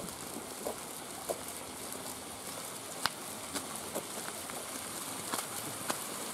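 Footsteps of people walking on a concrete path: irregular sharp slaps and clicks of sandals over a steady outdoor hiss.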